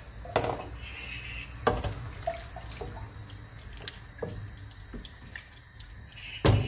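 Wooden spoon stirring chunks of meat in water in a pot, with sloshing water and a few sharp knocks, the loudest near the end.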